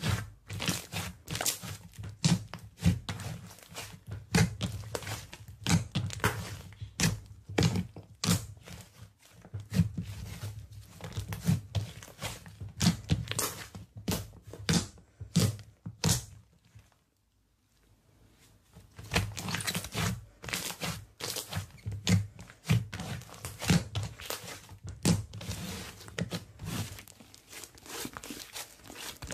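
Hands squeezing, stretching and poking slime, giving irregular sticky crackles and pops, several a second, with a brief pause a little past halfway.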